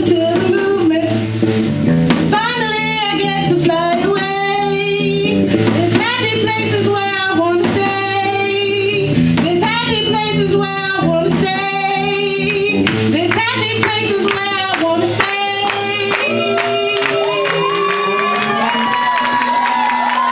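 Live rock band playing: a singer's voice over an electric bass and a drum kit. In the last few seconds the singing gives way to long held tones.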